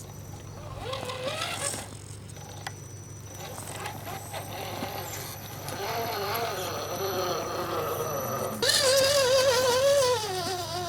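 Electric motor and gearbox of an RC rock crawler whining, the pitch wavering up and down with the throttle. It gets clearly louder about three-quarters of the way through.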